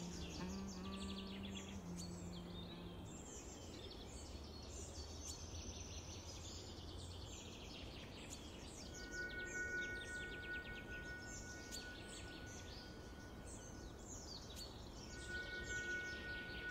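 Birds chirping and singing over faint outdoor background noise, with a few low sustained music notes fading in the first three seconds. A steady high tone is held for several seconds in the second half, with a short break shortly before the end.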